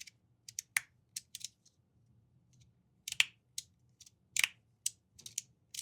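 Aluminum Delta magnetic fidget slider with PETG plates being slid back and forth. The plates snap from one magnet position to the next in a string of sharp clicks, with a pause of about a second partway through. The slider is set up with a milder magnet swap for a quieter, less crunchy click.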